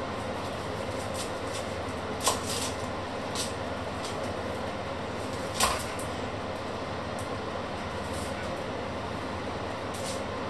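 Onions being peeled with a small kitchen knife over a wooden cutting board: a few sharp taps and clicks, the loudest about two and five and a half seconds in, over a steady rushing background noise.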